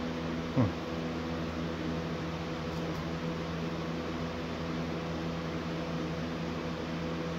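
Steady low machine hum with several held tones. A short falling sound about half a second in is the loudest moment.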